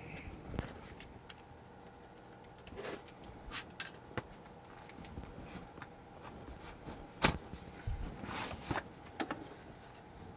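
Tool cases and plastic-wrapped tool sets being handled on a shelf: scattered clicks, knocks and rustling, the sharpest click about seven seconds in, over a faint steady hum.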